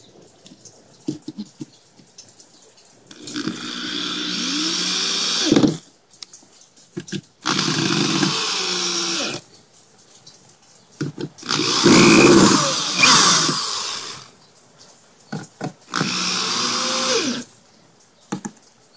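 Power drill driving screws into wooden form boards in four separate bursts of about two seconds each, the motor's pitch rising as it spins up. The third run is the loudest.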